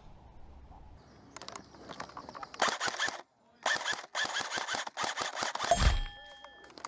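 Airsoft electric gun firing in rapid automatic bursts, with a brief pause between bursts, ending with a thump.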